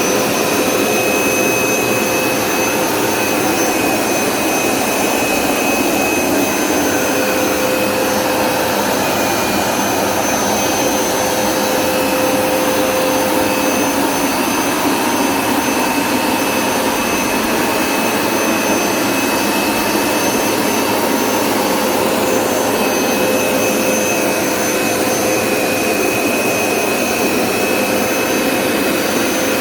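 Hoover SmartWash Pet Complete carpet cleaner running steadily: an even suction-motor whine with a few high, steady tones over a loud rushing air noise.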